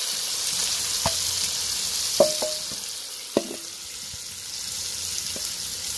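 Shrimp frying in hot curried oil in a pot, a steady sizzle, with a few sharp clanks of a metal spoon against the pot that ring briefly.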